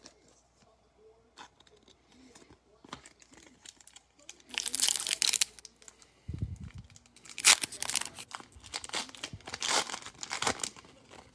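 Foil trading-card pack wrappers being torn open and crinkled by hand. The tearing and rustling come in several loud bursts from about halfway through, with a dull low bump just before the second set.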